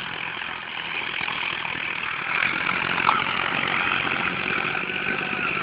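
Diesel tractor engine running steadily, growing a little louder over the first couple of seconds and then holding.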